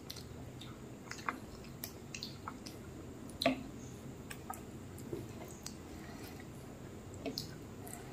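Fingers mixing and mashing cooked rice with curry on a plate: a scatter of small wet squishes and clicks, one louder about halfway through.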